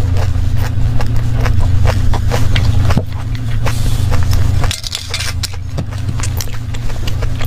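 Close-miked chewing of crunchy dessert pieces: a dense run of small crackling crunches over a steady low hum. The hum drops away about five seconds in. There is a single knock about three seconds in.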